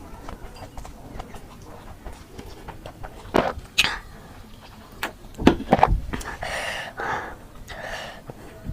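Close-miked eating sounds of a person chewing food in big bites: small wet mouth clicks throughout, several loud sharp bites or smacks about halfway through, then two breathy noisy stretches near the end.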